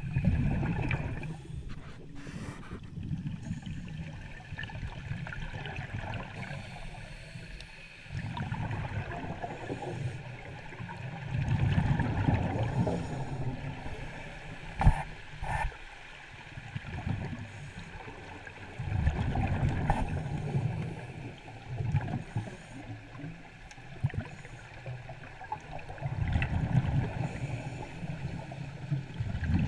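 Scuba diver's breathing heard underwater: exhaled bubbles from the regulator gurgle in low surges every several seconds. Two sharp knocks come about halfway through.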